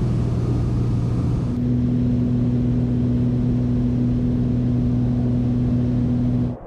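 Single-engine propeller plane's engine and propeller droning steadily, heard from inside the cabin while it taxis on snow. A low steady hum, with a second, higher tone joining about a second and a half in; the sound cuts off near the end.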